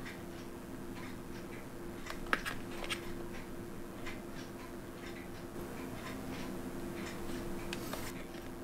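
Light clicks and taps of fine steel watchmaker's tweezers handling a tiny rubber O-ring and chronograph pusher, the sharpest click a little over two seconds in, over a steady low hum.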